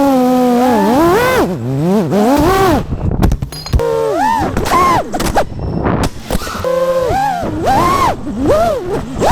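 FPV freestyle quadcopter's brushless motors and propellers whining, the pitch rising and falling sharply with each throttle punch, with a few brief cracks or breaks in the sound.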